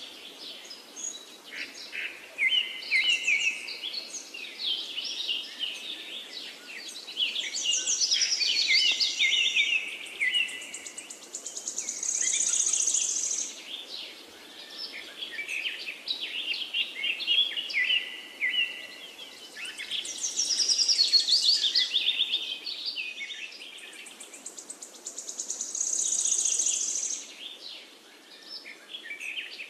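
Birdsong: several birds chirping and warbling, with a high buzzing trill that comes back every few seconds.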